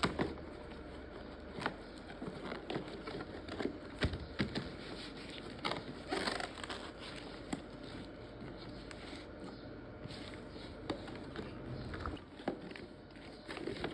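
Scattered crinkles, clicks and light knocks of toy packaging being handled and opened.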